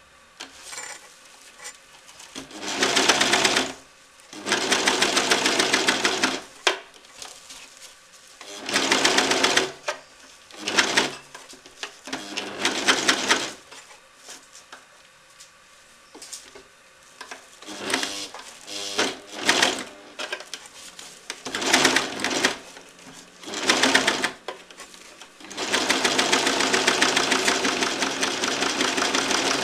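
Electric domestic sewing machine stitching through burlap in short runs, starting and stopping about eight times, with the longest run, about four seconds, near the end.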